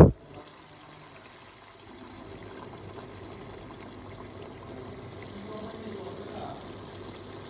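A steady, faint watery noise, like liquid running or bubbling while cooking.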